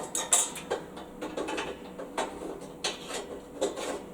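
Irregular clicks and clunks of metal parts being handled and adjusted on a bandsaw vice, with one louder knock just after the start.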